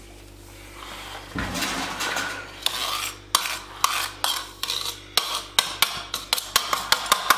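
Steel spoon scraping and tapping against a metal tray as it presses and smooths ajwain laddu mixture flat. The scraping starts after a quiet first second or so, and sharp clicks follow that come quicker toward the end, about three a second.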